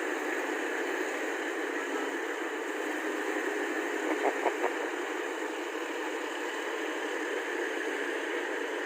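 Tracked rice combine harvester running in the field, a steady noisy drone, with a few brief pitched blips about four seconds in.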